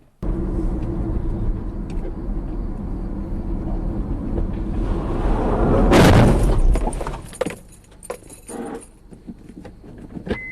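Vehicle rumble and road noise, swelling into a loud crash impact about six seconds in, then scattered clattering and rattling as it dies down.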